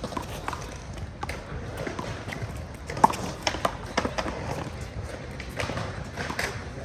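One-wall handball rally: the small rubber ball smacked by hands and slapping off the wall in a run of sharp, irregular pops, the loudest about three seconds in.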